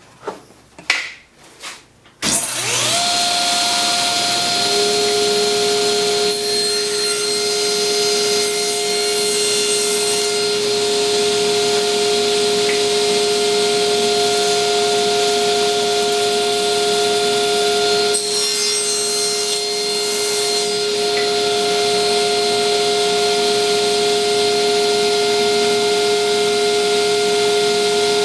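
A couple of knocks, then a table saw switched on, spinning up to a steady whine over about two seconds and running on. The sound shifts twice while it runs, a few seconds in and again about two-thirds of the way through, as the blade cuts a miter through wood on the sled.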